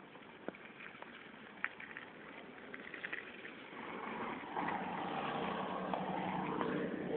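Rolling bicycle with small rattling clicks, and a motor vehicle's engine growing louder from about halfway through as a steady hum.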